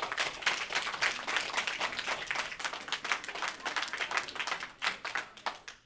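Audience applauding, many hands clapping at once; the clapping thins out and dies away near the end.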